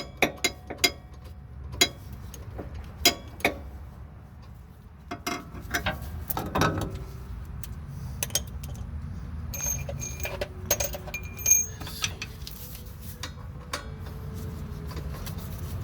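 Socket and ratchet hand tools clinking and clicking as they are handled: scattered sharp metal clicks, with a few ringing metallic clinks about ten seconds in.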